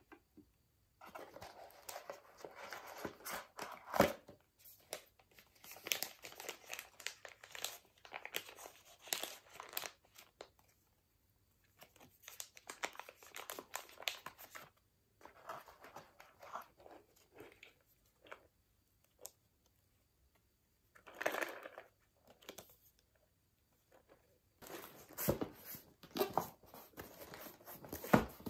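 Paper packaging and crinkled shredded-paper filler rustling and crinkling as items are handled and unpacked from a cardboard box, in stretches of a few seconds with short silent gaps. A sharp tap about four seconds in is the loudest sound.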